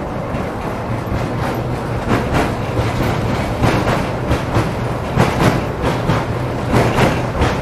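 Tram running along the rails, its wheels clattering over the track above a steady low hum. The knocks come thicker and louder after about two seconds.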